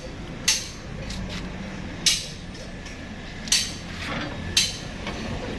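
Sharp metallic clinks, four of them spaced roughly a second apart, from hand tools striking or handling metal engine parts during engine installation work, over a steady low background hum.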